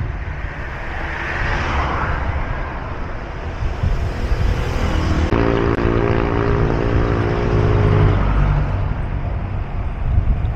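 Wind rushing over a bike-mounted action camera's microphone, with tyre and road rumble as a gravel bike rolls along a concrete road. From about halfway through, a steady engine drone from a motor vehicle joins for about three seconds.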